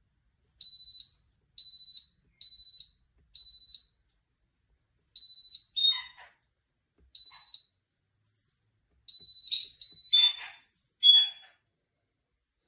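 Electronic beeps from a compressor ice cream maker's control panel. There are four short high-pitched beeps about a second apart, then several more, irregular beeps mixed with brief clicks in the second half.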